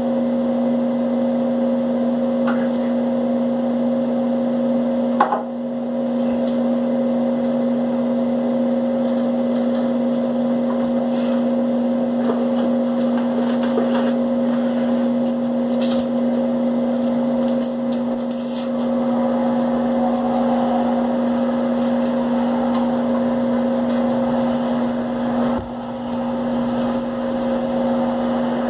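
A steady, loud machine hum holding one low pitch, with scattered light clicks and rustles and a sharp knock about five seconds in.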